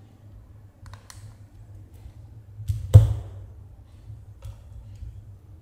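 Small plastic parts and screws being handled while a camera's tilt-motor assembly is dismantled: a few faint clicks and one sharp knock about three seconds in, over a low steady hum.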